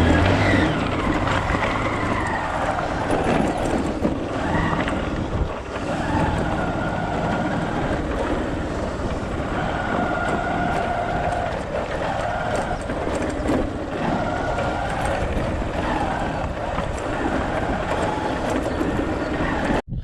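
Motorcycle engine running as the bike is ridden along a rough dirt track, its pitch rising and falling with the throttle over a steady rumble.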